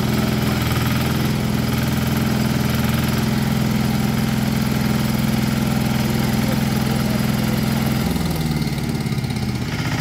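Engine of a small movable backhoe running steadily while the boom and bucket work. About eight seconds in, its pitch drops and wavers as the engine slows.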